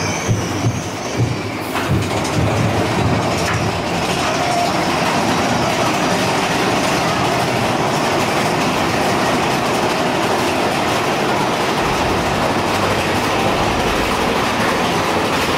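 Big Thunder Mountain Railroad mine-train roller coaster running on its track: a few heavier clacks in the first two seconds, then a steady clattering rumble of the cars and wheels.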